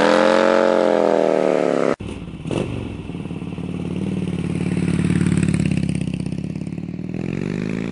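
Harley-Davidson V-twin motorcycle with SuperTrapp exhaust pulling away: its pitch climbs and then sinks. About two seconds in the sound cuts off abruptly and gives way to the motorcycle engine running at a lower pitch, its level slowly swelling and easing.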